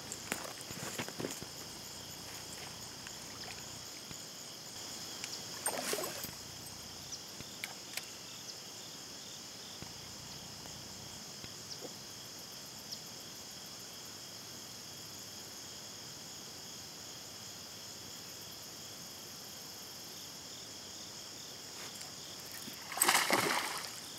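Steady chorus of crickets and other insects, with a few short rustles and clicks in the first eight seconds. About a second before the end, a hooked bass thrashes and splashes loudly at the water's surface.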